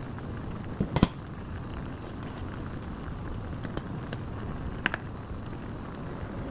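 Beef hot pot broth boiling hard on a high gas flame, a steady bubbling hiss. Sharp metal clinks come about a second in and twice near five seconds, as cookware and a ladle knock the pan while the foam is skimmed.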